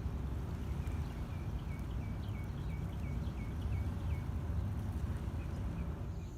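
A steady low outdoor rumble with a bird repeating short falling chirps, about three a second, that stop about four seconds in.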